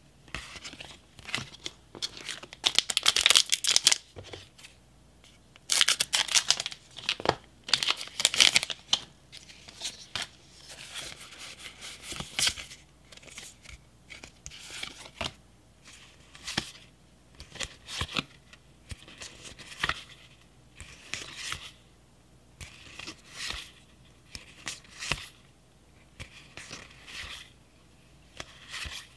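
Pokémon trading cards handled by hand: card stock sliding and rubbing loudly in two spells as the stack is gathered and squared, then a soft slide about every second as cards are moved to the back of the stack one at a time.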